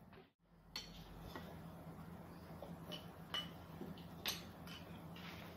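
Metal cutlery clinking lightly against ceramic plates and bowls, about half a dozen faint, separate clinks spread over a few seconds.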